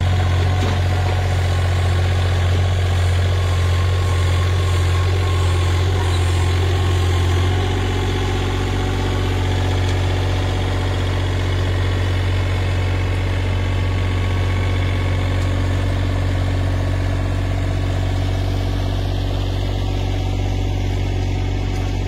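MCM MS30 mini skid steer's engine running steadily with a deep hum. About seven seconds in it settles to a slightly lower, quieter note.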